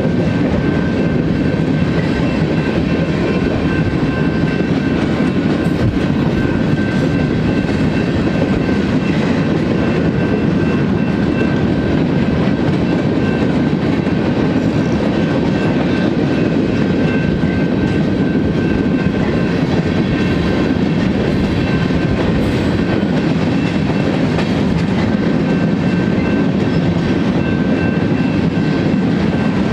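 Freight cars of a BNSF manifest train rolling steadily past: the rumble and clickety-clack of steel wheels on the rail joints, continuous and loud, with a faint steady high tone above it.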